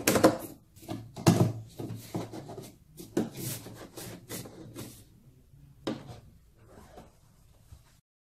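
Corrugated plastic ball-return hose being handled and pushed onto a plastic goal box inside an MDF foosball table: irregular rubbing, scraping and knocks, loudest in the first couple of seconds and fading toward the end.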